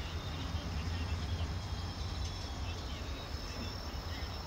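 Outdoor countryside ambience: insects trilling steadily at a high pitch, with a few faint chirps, over a steady low rumble.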